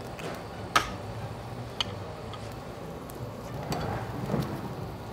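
Metal tongs and utensils clicking against a tabletop grill and dishes: a few sharp clicks, the loudest about a second in, over a low steady hum.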